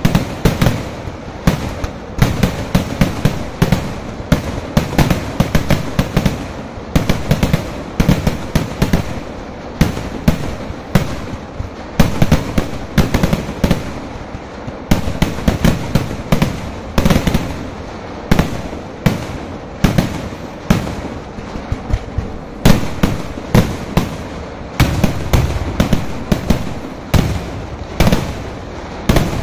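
Fireworks barrage: aerial shells launched from the ground in quick succession and bursting overhead, a loud, unbroken string of sharp bangs several a second.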